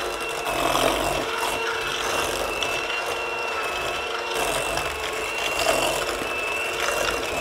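Electric hand mixer running steadily with a high motor whine, its beaters creaming butter and sugar in a stainless steel bowl.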